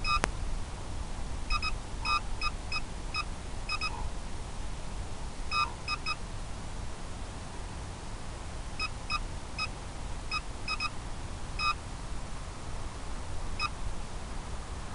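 Short electronic beeps, mostly in quick pairs and little clusters, repeating irregularly over a steady low rumbling noise. A single sharp click comes right at the start.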